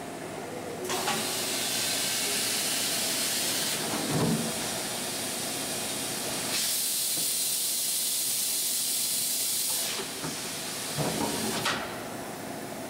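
Compressed air hissing inside a Kitamura Mycenter 2 vertical machining center, over the machine's steady running hum. The hiss starts about a second in, turns brighter for a few seconds in the middle, and stops near the end, with a low clunk about four seconds in and a few more clunks shortly before it stops.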